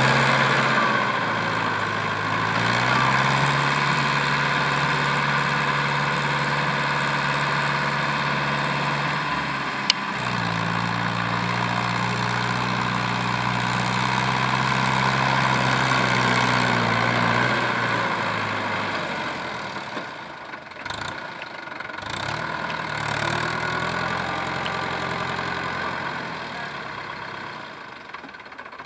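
Sonalika DI 47 RX tractor's diesel engine running steadily, its note stepping up in pitch about ten seconds in, then dropping and growing quieter before picking up again. A single sharp click sounds about ten seconds in.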